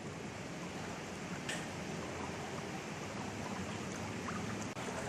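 Steady hiss of water in a flooded street, with one faint click about a second and a half in.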